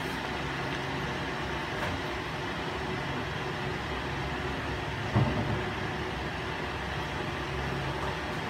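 A steady low mechanical hum throughout, with a single brief knock about five seconds in.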